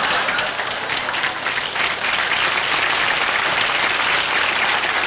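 Studio audience applauding: many hands clapping at once, steady throughout.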